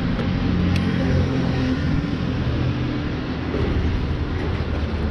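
Motorcycle engine running at idle amid road traffic rumble.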